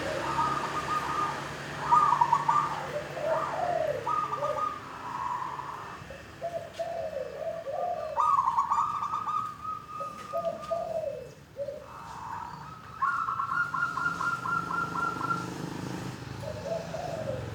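Zebra dove (perkutut) cooing, a string of separate phrases with short gaps: higher phrases with a fast rolling trill, and lower coos that slide down in pitch.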